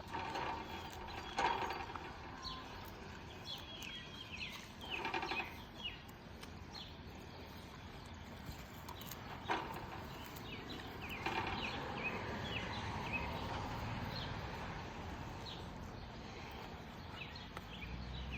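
A heifer eating, with several short, louder noisy bites or rustles spaced a few seconds apart, while small birds chirp repeatedly in the background.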